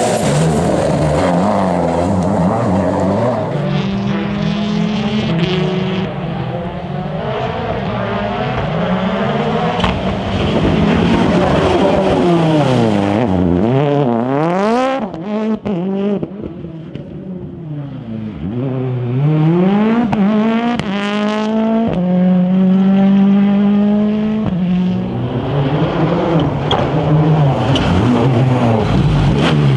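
Rally cars' engines at full throttle, the note climbing through each gear and dropping at every shift or lift, as cars pass one after another; a few sharp cracks come about halfway through.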